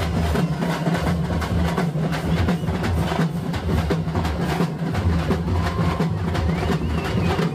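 Procession music with heavy drumming: many drum strokes over a steady low drone.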